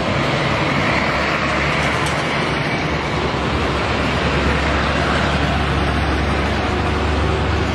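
Heavy six-wheel military trucks driving past: a steady engine rumble with tyre and road noise, the rumble swelling in the second half as a truck goes by.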